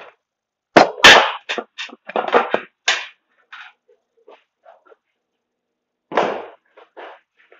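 Sharp clanks and rattles of scrap metal parts being handled and set down on a workbench while an appliance part is stripped: two loud clanks about a second in, a run of smaller clatters, then another knock about six seconds in.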